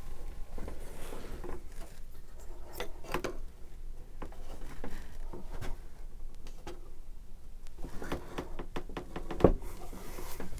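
Hyundai sliding mitre saw being adjusted by hand, its head tilted to a 42-degree bevel: scattered clicks, knocks and rattles of its metal and plastic parts, with a louder knock near the end.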